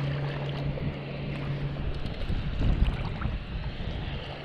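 Wind buffeting the camera microphone on an open shore, with a steady low engine hum that drops out about two seconds in and returns near the end.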